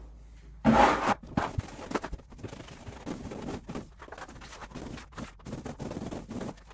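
Irregular scraping and rustling from handling work at a wallpapered wall from a stepladder, with a louder scrape about a second in.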